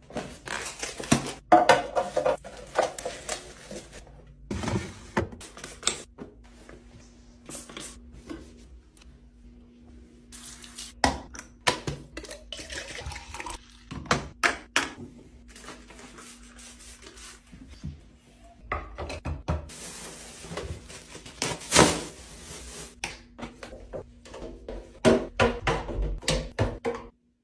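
Kitchen restocking sounds: containers and packaged items handled and set down, with many sharp knocks and clatters between stretches of rustling, over a faint steady hum.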